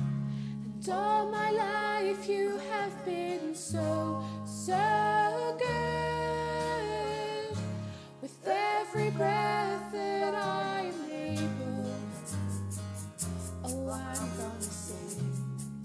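A woman singing a slow worship song over strummed acoustic guitar and electric bass. From about twelve seconds in, hand percussion adds even rhythmic ticks.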